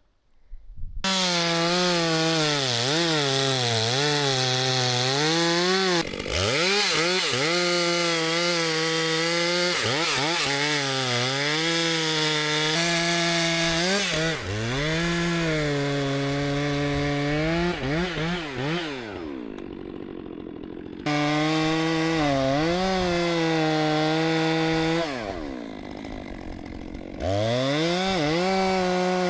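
Two-stroke chainsaw starting up about a second in and cutting into a tree, its engine pitch dipping and recovering as the chain bites. Twice the saw eases back to a lower idle for a second or two before being revved into the cut again.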